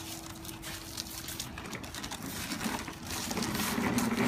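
Irregular clicking and rattling from a wheeled object being pushed along the ground, growing louder near the end.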